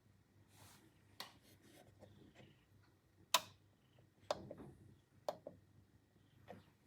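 A handful of sharp, irregular clicks and taps, the loudest about a third of the way in, over a faint steady low hum.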